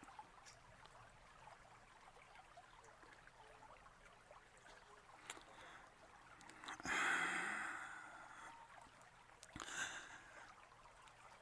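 A person sighing: one long, heavy breath about seven seconds in and a shorter breath near ten seconds, over a quiet background.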